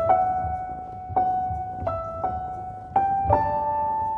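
Slow, soft background piano music: a sparse melody of single notes, struck roughly once a second and left to ring.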